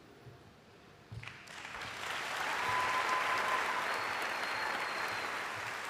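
Audience applause that starts about a second in, swells quickly and holds steady at the close of the talk.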